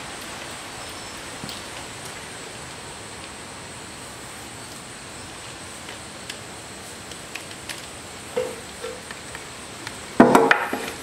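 Steady background hiss with a few faint clicks of handling, then near the end a metal tea tin is set down and handled on a wooden workbench in a short clatter of knocks.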